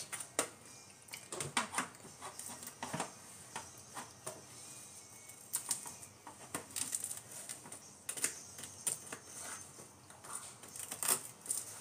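Metal knife and fork clicking and scraping against a plate while bread is cut, in irregular taps and short scrapes.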